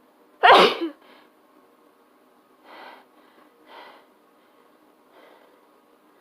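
A person sneezing once, loud and sudden, about half a second in, followed by two much quieter, short breaths a couple of seconds later.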